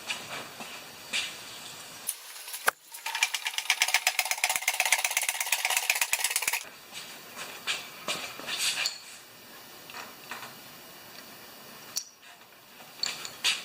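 Light metallic clinks and taps from handling a Tecumseh lawn mower carburetor's float bowl and small parts while they are cleaned. In the middle, a hissing spray runs for about four seconds and then stops suddenly.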